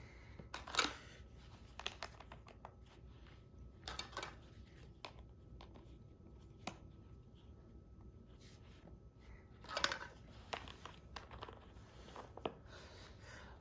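Plastic toy train track pieces being handled and fitted together: scattered light clicks and rustling, with a small cluster of knocks about ten seconds in.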